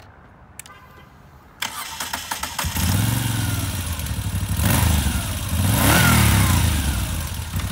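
2017 Moto Guzzi V7 III Stone's 744 cc fuel-injected V-twin being started: the electric starter cranks briefly, the engine catches about two and a half seconds in and settles into a steady idle. It is then revved up twice and falls back each time.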